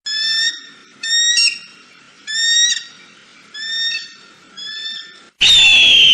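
Eagle calling: five short, high piping notes about a second apart, then a loud, long scream that falls in pitch, starting near the end.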